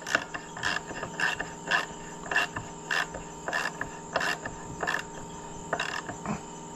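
A series of short, sharp clicks at an uneven pace of roughly two a second, over a steady faint hum and tone.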